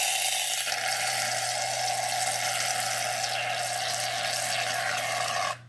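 Aerosol shaving cream can spraying foam in one long, steady hiss that cuts off suddenly near the end.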